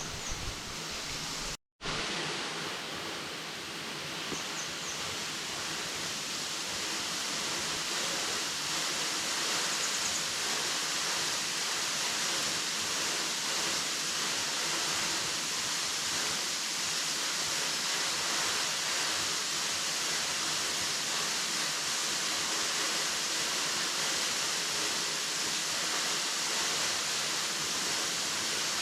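Waterfall: a steady, even rush of falling water. It cuts out for a fraction of a second just under two seconds in.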